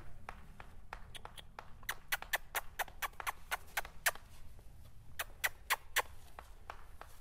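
A crop tapping lightly and steadily on a horse's hip, a quick even run of taps about five a second that stops about six seconds in: rhythmic pressure cueing the horse to step its hindquarters over.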